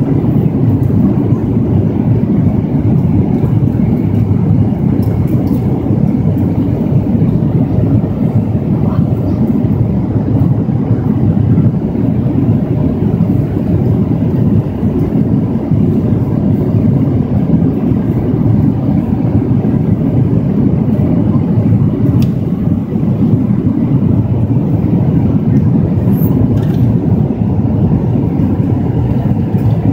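Steady, loud, low-pitched noise of a jet airliner's passenger cabin at cruise altitude: the even mix of engine and airflow noise, unchanging throughout.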